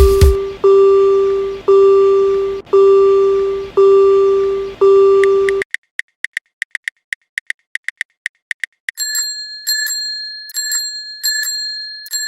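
Railroad crossing warning bells sounding in turn. First a lower bell dings about once a second, then a high rapid ringing follows, and in the last few seconds a higher-pitched bell strikes two or three times a second.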